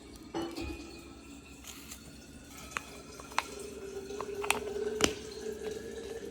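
Soup being poured into a lunch container, a steady liquid-filling tone that rises slightly as it fills, with a few sharp clicks of utensils or the container.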